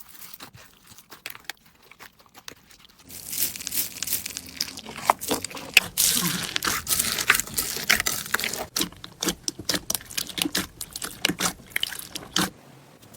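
Slime being squeezed and worked by hand, giving a run of crackling, popping clicks. Sparse and faint for about the first three seconds, then louder and denser, dying away shortly before the end.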